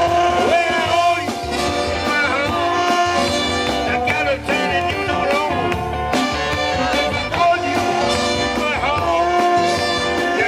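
Trumpet and saxophones playing an upbeat swing-style tune together live, with note bends and slides, over a steady beat.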